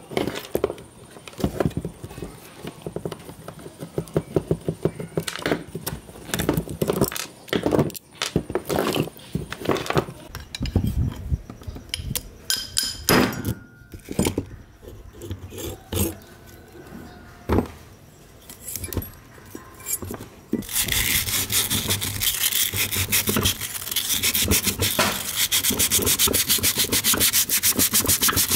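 Metal parts of an old electric fan motor being handled and pulled apart, with scattered clicks and knocks. About twenty seconds in, brisk hand-sanding with sandpaper on the motor's metal parts takes over: a steady, fast scraping that grows louder near the end.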